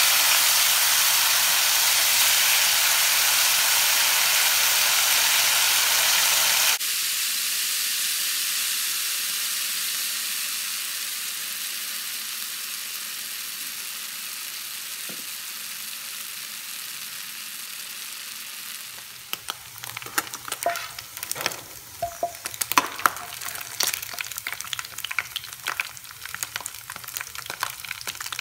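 Masala-coated beef pieces frying in hot oil in a pan: a loud, steady sizzle that drops suddenly about seven seconds in and then slowly fades. From about two-thirds of the way through, a steel spatula knocks and scrapes against the pan as the meat is turned, over the continuing sizzle.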